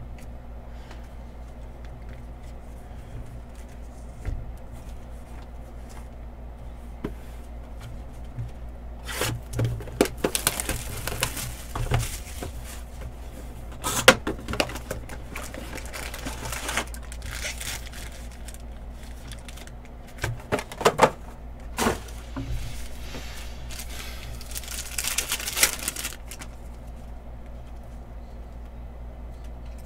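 A sealed trading-card hobby box and its packs being torn open by hand: irregular bursts of tearing and wrapper crinkling, starting about nine seconds in and coming on and off in three spells, over a steady low hum.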